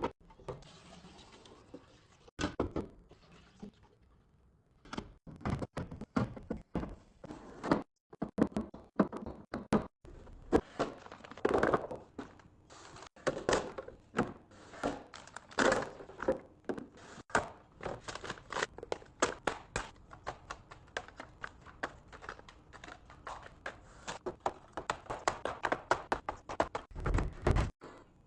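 Kitchen restocking handling sounds: many sharp thunks, clicks and knocks as containers and food packages are set down, opened and arranged, with stretches of packaging rustle.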